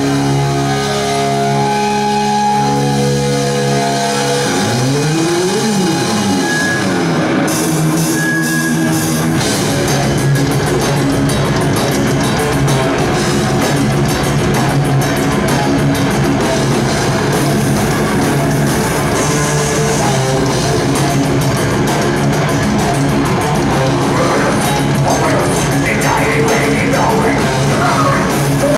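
Live heavy metal band playing loud through a club PA: held distorted guitar notes, then pitches sliding up and down about five seconds in, before drums and crashing cymbals come in with the full band about seven seconds in and play on.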